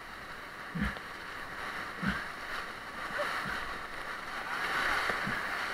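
Whitewater rapids rushing around an inflatable raft, the roar swelling near the end. Dull low thumps come about every second and a half.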